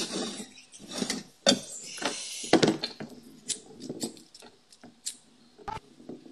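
Handling noises: an irregular string of sharp clicks, scrapes and knocks, about one or two a second, as a disposable lighter and other small objects are handled at a tabletop.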